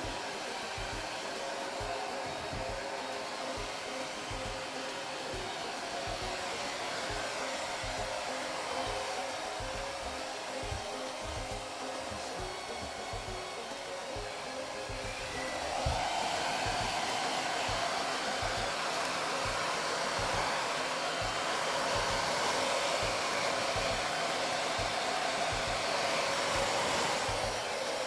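Hand-held human hair dryer blowing steadily, drying a shampooed cat's wet fur. It gets louder about halfway through.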